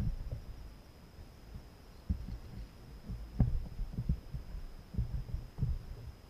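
Irregular low thuds and knocks against a kayak hull as an angler reels in a hooked fish, starting about two seconds in.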